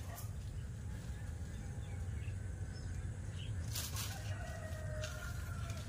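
Rural outdoor ambience: a low steady rumble with a faint bird call about four seconds in, and a couple of light clicks just before it.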